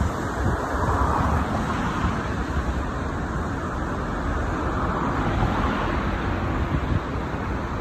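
Steady rumble of distant city traffic, with wind buffeting the microphone.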